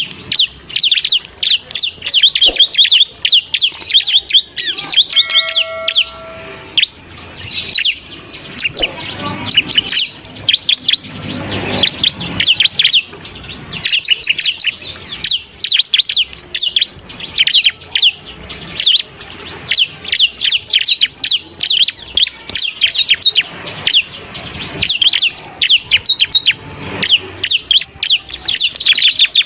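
Ciblek (prinia) singing in rapid, continuous high-pitched chirps and trills with hardly a pause. A brief steady tone sounds about five seconds in.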